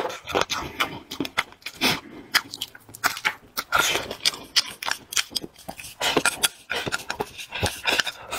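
A person chewing food close to the microphone, with irregular crunches and wet mouth clicks.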